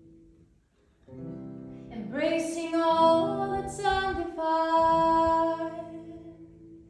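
Live music: a woman's singing voice holding and gliding through long notes over a sustained instrumental backing, entering after a brief near-silent pause about a second in.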